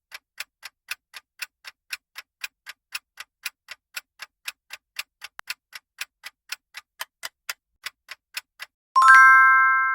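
Countdown-timer clock ticking sound effect, even ticks about three a second. Near the end a loud bell-like chime rings once and fades: the time is up.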